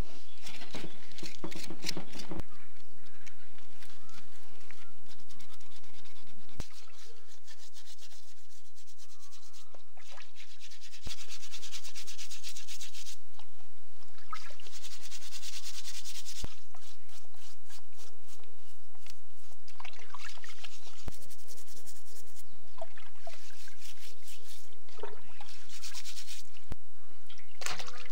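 Knife blade scraping the burnt, singed skin of lamb heads and feet in repeated short strokes, then water sloshing in a metal pot as a head is rubbed clean by hand. A steady low hum runs underneath.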